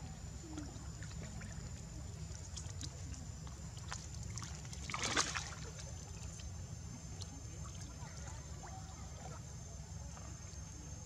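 Pond water sloshing and lapping as a long-tailed macaque swims, with one louder splash about five seconds in. Under it runs a steady low rumble and a thin, steady high-pitched whine.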